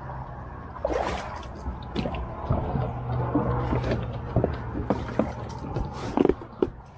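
Water sloshing and lapping against a plastic kayak hull, with scattered knocks and clicks throughout.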